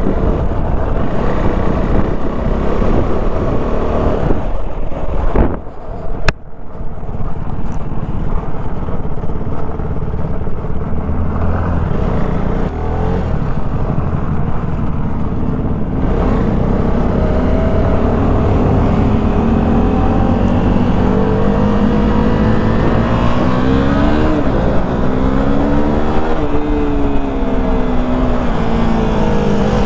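KTM Duke 390's single-cylinder engine running under way, its pitch climbing and falling several times in the second half. A short drop in level with one sharp click about six seconds in.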